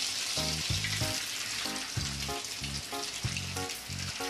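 Egg batter drizzled by hand into hot oil in a kadai, sizzling steadily as it fries into a frothy coating. Background music with a steady beat plays underneath.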